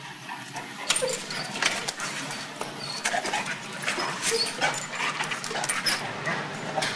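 Labrador retrievers whimpering and yipping, with a run of clicks and knocks starting about a second in.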